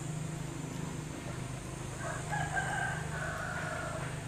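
A rooster crowing once, a drawn-out call starting about two seconds in, over a steady low hum.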